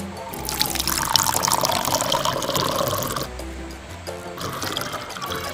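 An iced drink slurped up through a straw from a glass jar: a long sip of about three seconds, then a shorter one near the end.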